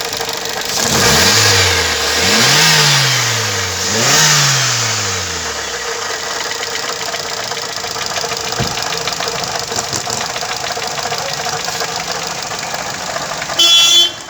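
Maruti Suzuki Ertiga engine blipped three times, its pitch rising and falling each time, then settling to a steady idle. The engine has a knock that the mechanic suspects may come from a connecting rod. A short loud sound breaks in just before the end.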